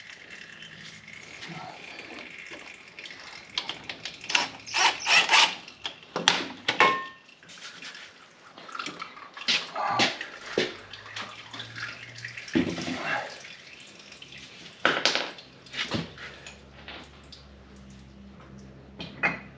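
Hydraulic oil dripping and trickling from the opened hydraulic system of a John Deere 4440 tractor, with irregular metallic clinks, scrapes and knocks from parts and tools being handled. The clatter is busiest a few seconds in.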